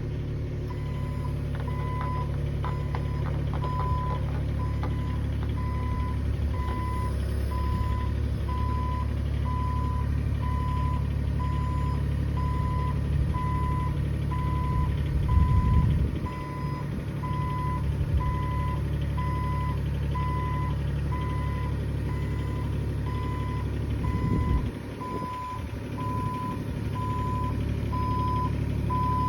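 Excavator diesel engine running with its travel alarm beeping steadily, about one and a half beeps a second, as the machine moves. The engine note swells briefly about halfway through and again near the end.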